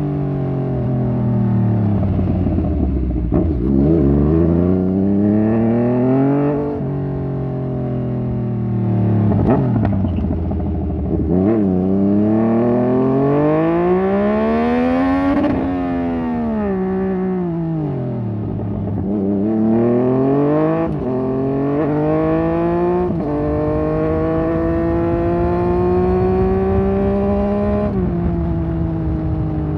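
Yamaha MT-09 Tracer's 847 cc inline three-cylinder engine, through an aftermarket Fuse Racing exhaust, pulling hard under a ridden motorcycle. The revs climb and fall again and again as it accelerates and slows. Near the end it gets quick drops in pitch at the upshifts and then settles into a steady pull.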